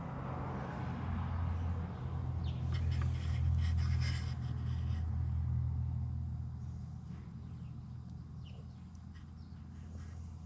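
A dog's low, drawn-out grumbling that swells over the first few seconds and then slowly fades, with a few light clicks and rustles partway through.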